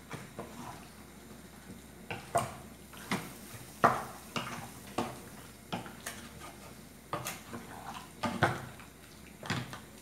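Wooden spoon stirring chicken pieces in an aluminium pot, knocking and clinking against the pot in an irregular string of strikes, the loudest about four seconds in.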